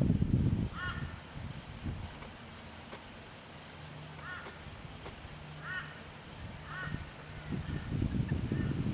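Young butcherbird giving short, arched, squawky calls, about five spaced through a few seconds, typical of a begging fledgling being hand fed. A low rumbling noise is heard in the first second.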